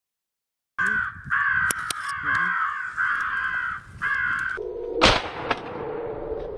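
Crows cawing loudly for about four seconds, then a single loud shotgun shot about five seconds in.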